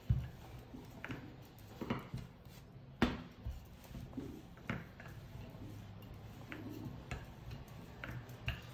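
Irregular knocks and clicks of a rolling pin on the work board as laminated croissant dough is rolled out thin, the loudest knock about three seconds in, over a faint low hum.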